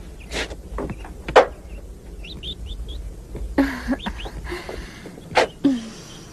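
Scattered sharp knocks and thumps, the loudest about a second and a half in, with a few short high chirps like a bird's about two seconds in.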